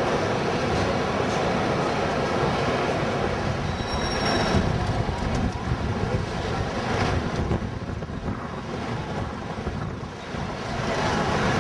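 Steady city background noise: the hum of a large station hall, then, from about five seconds in, traffic passing on a busy street.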